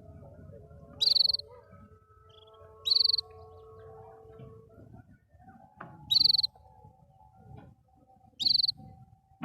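Canary giving four short, loud, high calls about two seconds apart, over fainter, lower drawn-out tones.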